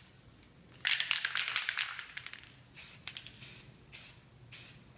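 Aerosol spray-paint can shaken hard for about a second and a half, its mixing ball rattling, then four short hissing bursts of spray paint in quick succession. Crickets chirp faintly throughout.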